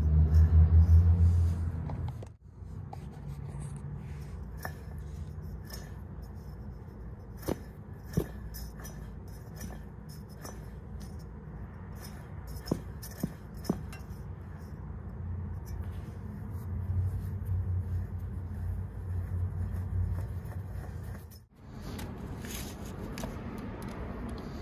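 Sharp metal clicks and clinks over a low steady hum as the vintage Dunlap jigsaw's drive pulley and mechanism are turned.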